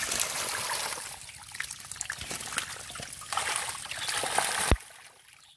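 Wet splashing and crackling of a mass of stinging catfish writhing and slapping together in shallow muddy water. A sharp knock near the end, after which it goes much quieter.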